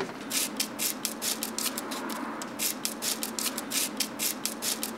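Scissors cutting through 150-grit dry sandpaper in a quick run of short, crisp snips, about three or four a second.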